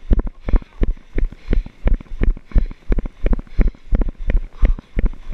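Running footsteps on a gravel road, about three heavy footfalls a second, jolting a body-worn camera with each stride.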